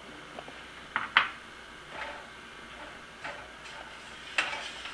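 Several short clinks and scrapes of a glass bowl and a spatula against a nonstick wok as heavy cream is added to milk powder and stirred, the loudest about a second in.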